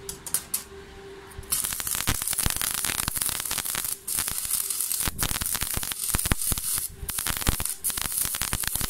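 Stick (MMA) welding arc from a Stahlwerk AC/DC 200 Puls ST IGBT inverter welder with a 2.4 mm electrode, running a fillet weld on 4 mm flat steel at about 130 A. The arc strikes about a second and a half in, then crackles and sizzles steadily, dropping out briefly twice.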